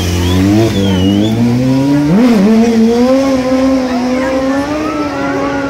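Stunt motorcycle's engine running at low revs, then revving up sharply about two seconds in and held at high revs. A faint high squeal comes near the start.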